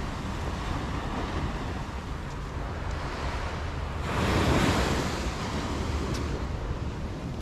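Small waves washing onto a sandy beach, with one louder surge of surf about four seconds in, over a low rumble of wind on the microphone.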